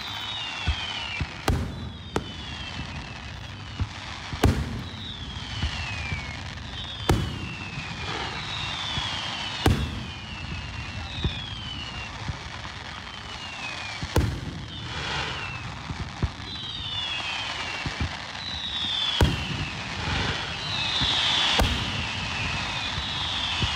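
Aerial firework shells bursting at a distance: about ten sharp booms a few seconds apart, each trailing a short echo, over a steady hiss.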